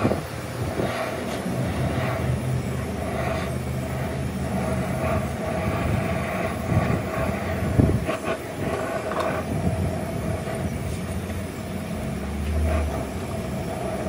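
Gas brazing torch hissing steadily while brass rod is melted into the bore of a cast differential housing, over a steady machine hum. A sharp knock about eight seconds in.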